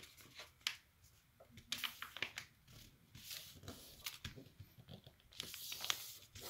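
A sheet of printer paper rustling and crinkling as it is folded and its crease pressed flat with the fingers: short scattered rustles, then a longer sliding rub near the end.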